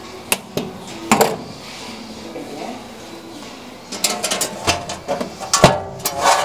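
Sharp clicks and clattering knocks of small hard objects being handled: a few about a second in, a quick run of them about four seconds in, and one loud knock near the end. Faint music fades out at the start.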